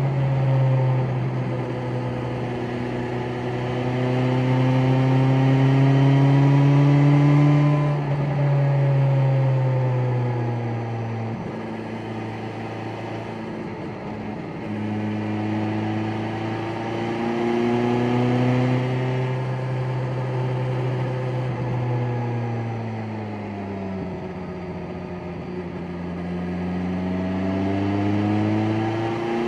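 BMW S1000XR's inline-four engine pulling in sixth gear at low revs, running smoothly. Its note climbs slowly and falls away several times as the throttle opens and closes, over a steady hiss of wind and tyres.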